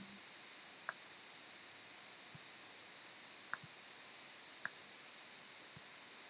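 A handful of faint, sharp computer mouse clicks, about five spread over a few seconds, over near silence with a faint steady hiss.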